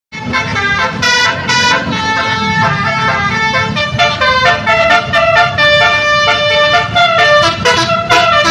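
A bus's multi-tone basuri ("telolet") horn playing a tune of changing notes, loud and continuous, over a low rumble.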